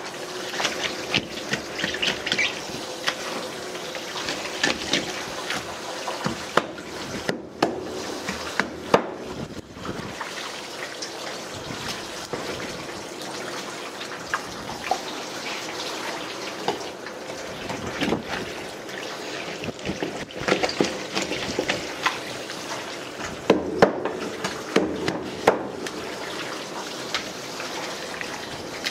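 Kitchen faucet running in a steady stream onto fish pieces on a plastic cutting board as they are rinsed and scaled by hand, with frequent short clicks and knocks of the fish and knife on the board.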